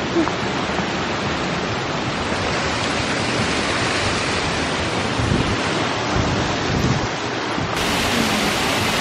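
Waterfall pouring onto the shore, a steady, loud rush of water, with a few low wind buffets on the microphone midway.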